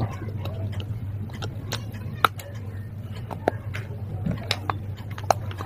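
Baked clay pot pieces and slate pencil bits crunching and cracking between the teeth, with irregular sharp cracks, a few louder than the rest, over a steady low hum.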